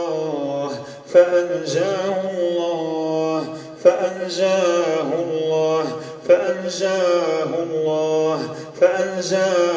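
A man's voice reciting the Quran in a slow, drawn-out chant, holding long notes, with each new phrase starting sharply about every two and a half seconds.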